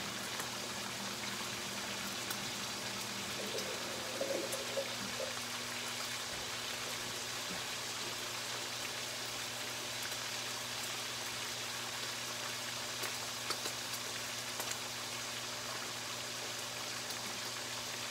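Bacon frying in butter in a skillet: a steady sizzling hiss with many small crackling pops, over a steady low hum.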